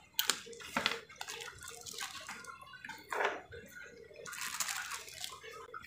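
Wet squelching and plastic bag rustling as freshly boiled carp bait dough is squeezed out of its plastic bag into a plastic bowl, in irregular crackles and squishes.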